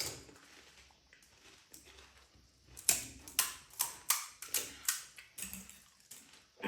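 Crisp panipuri shells crunching as they are chewed: about ten sharp crunches, a couple a second, starting about three seconds in after a quiet stretch.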